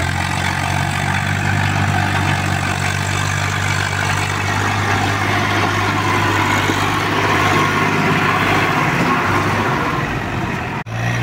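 Swaraj 744 FE tractor's three-cylinder diesel engine running steadily as the tractor drives past pulling a trailer. The sound breaks off briefly near the end.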